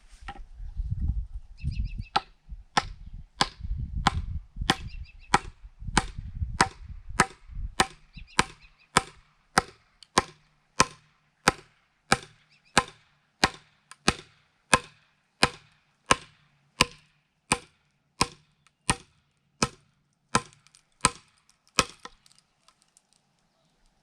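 Mini sledgehammer driving wooden wedges into a crack down the heart of a log to split it: a steady run of sharp knocks, about three every two seconds, stopping near the end.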